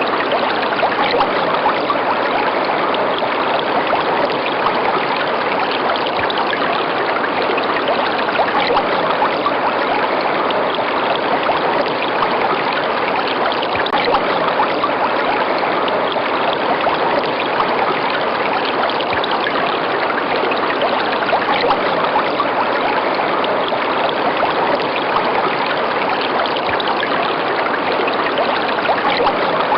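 A river running: a steady, unbroken rush of flowing water.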